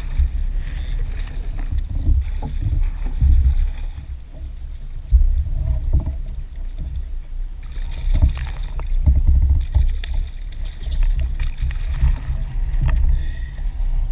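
Wind gusting over the microphone as an uneven low rumble, with small splashes and knocks from a kayak on choppy water.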